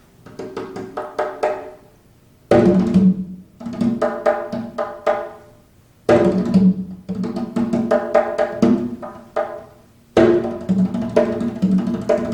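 Recorded music with tabla played back over hi-fi loudspeakers in a listening room: pitched hand-drum strokes in repeating phrases, each phrase opening with a strong attack about every four seconds.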